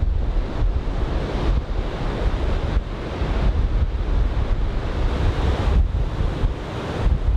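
Big typhoon-swell surf breaking and washing, with strong wind buffeting the microphone in a constant low rumble. The wash of the waves swells up through the middle and eases off near the end.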